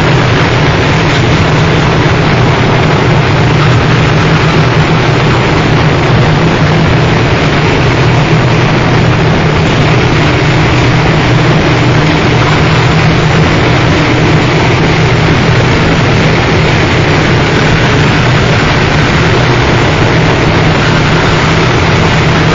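Harsh noise wall: a loud, unchanging wall of distorted noise with a heavy low hum underneath, no beat or melody.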